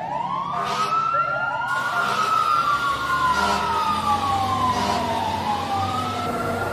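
Sirens wailing, several slow rising-and-falling wails overlapping one another, starting suddenly at full strength.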